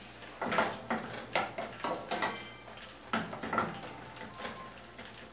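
Irregular clinks and knocks of a utensil and hands against a metal cooking pot as chopped sausage is put into it on the stove, about eight short strokes, some with a brief ring.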